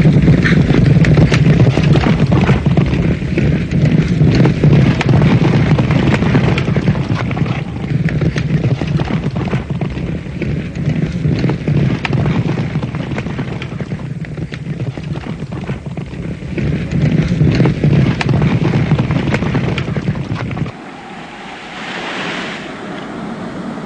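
Loud rushing noise like wind and surf, with a steady deep rumble beneath and many crackles. The rumble stops suddenly near the end, leaving a fainter hiss that swells briefly.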